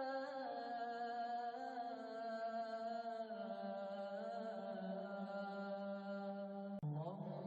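Wordless vocal background music: a hummed, chant-like voice holding long notes that step slowly down in pitch, with a short break and a new phrase starting near the end.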